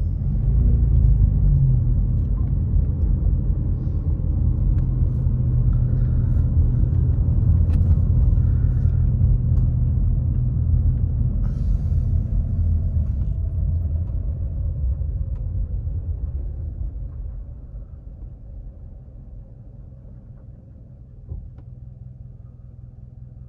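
Car driving, heard from inside the cabin: a steady low rumble of engine and tyres on the road. The rumble dies down about two-thirds of the way through as the car slows to a stop, and a single short click comes near the end.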